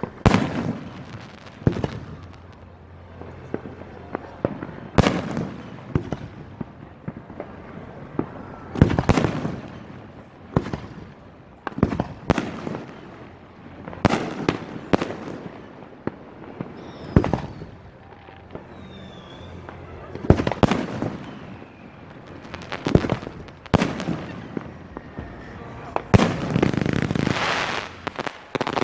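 Fireworks display: aerial shells bursting one after another, a dozen or more bangs, each trailing off. Near the end the bursts crowd together into a dense, continuous stretch.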